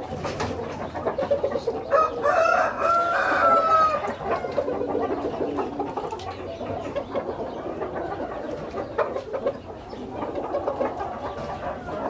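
A rooster crows once about two seconds in, a single long call of about two seconds that dips in pitch at the end. Clucking and other bird calls run on around it.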